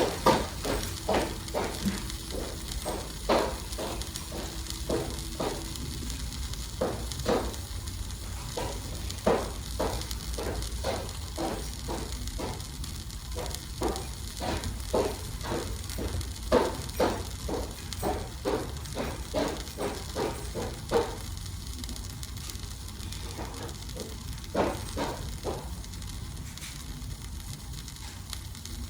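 Flatbread with melted cheese sizzling in a pan on the stove, with irregular crackling pops that thin out over the last several seconds, over a low steady hum.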